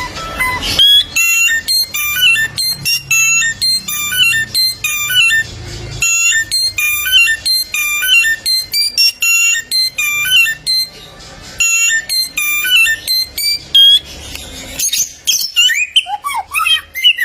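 Male bare-throated whistler singing a fast, varied song of short notes jumping up and down in pitch. Near the end come several quick whistled glides.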